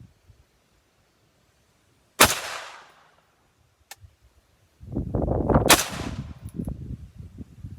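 AR-15 rifle (Heavy Metal Tactical HMT-15) firing 62-grain 5.56 mm green-tip rounds: two single shots about three and a half seconds apart, each a sharp crack with a short decaying echo. A low rumbling noise sets in just before the second shot.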